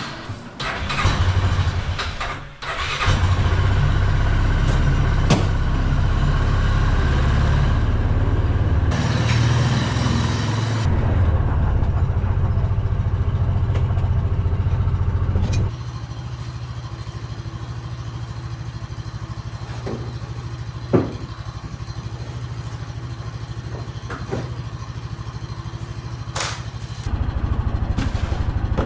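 A small vehicle engine is started, catching after a short unsteady spell, then runs with a steady low throb. Its level drops about halfway through and rises again near the end.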